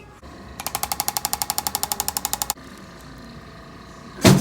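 Rapid mechanical tapping from an electric chiropractic adjusting instrument, about fourteen taps a second for two seconds, stopping abruptly. Near the end, a single loud thud of an adjustment.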